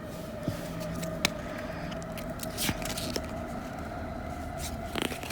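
Foil booster-pack wrapper crinkling as it is torn open and the cards are handled, with scattered sharp crackles over a steady faint hum.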